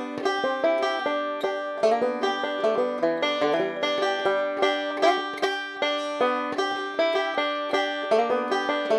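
Resonator banjo fingerpicked with Gold Tone metal finger picks in a steady stream of rapid plucked notes, recorded through a Shure SM58 vocal microphone.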